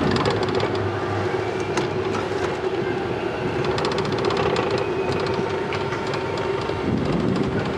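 Wiegand summer-toboggan bob rolling down its stainless-steel trough: a steady rumble with a constant hum and scattered clicks.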